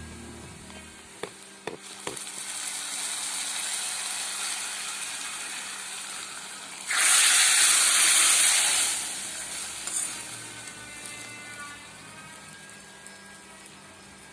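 Hot coconut-oil tempering of mustard seeds, shallots and curry leaves sizzling, with a few sharp metal clinks a second or two in. About seven seconds in it is poured into the curry and hisses loudly for about two seconds, then the sizzle dies down.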